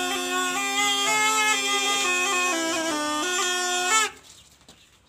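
Snake charmer's been (pungi, gourd pipe) playing a melody over a steady drone, stopping abruptly about four seconds in.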